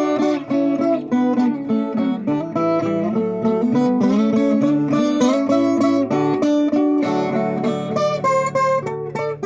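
Viola caipira played solo, a continuous run of quickly fingerpicked notes ringing over one another.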